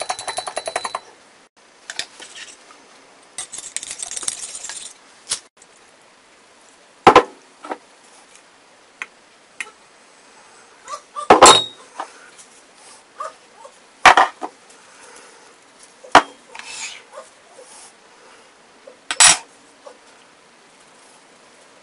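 A metal spoon clinking rapidly against a glass mug while stirring a sauce, followed by a few separate knocks and clinks of kitchen utensils and containers, some against a stainless steel mixing bowl.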